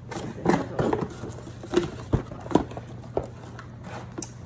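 Things being handled on a table: a series of light knocks and rustles as items are picked up, moved and set down.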